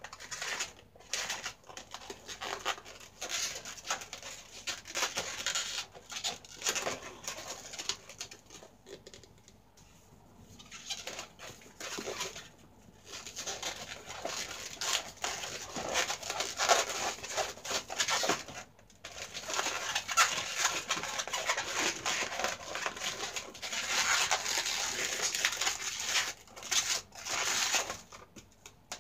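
Long latex modelling balloons squeaking and rubbing as they are twisted and woven together by hand, in irregular bursts with a quieter stretch about nine seconds in.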